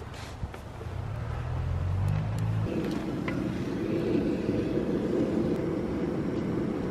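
Propane wand torch burning into a stack of firewood to light a campfire: a steady rushing flame that starts low about a second in, then turns suddenly louder and fuller a little under three seconds in.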